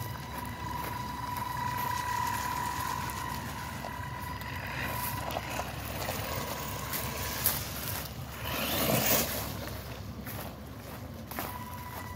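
Electric drive motors of a twin-motor 6x6 WLtoys 124018 RC truck on its stock electronics, whining steadily as it drives over wood chips and dirt, with the rustle of its tyres. A louder rushing burst comes about two-thirds of the way through.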